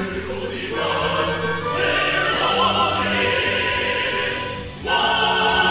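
Opera singers singing with orchestral accompaniment. The music dips briefly near the end, then comes back louder.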